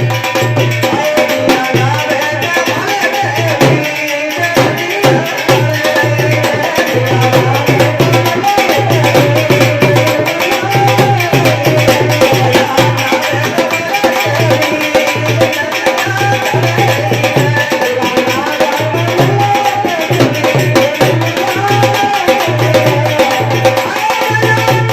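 Rajasthani bhajan music with a steady, regular hand-drum beat, shaken rattle percussion and wavering melodic lines.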